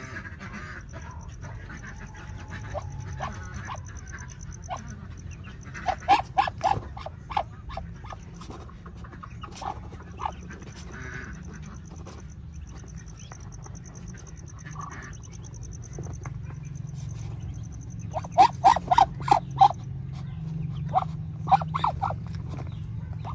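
Muscovy duck hen giving rapid runs of short, harsh calls, several a second: twice, loudest near the end. The calls are an angry, defensive reaction to a hand touching her newly hatched ducklings.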